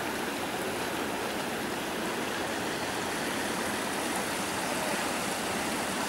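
Steady rushing of a spring-fed stream running fast over rocky shallows.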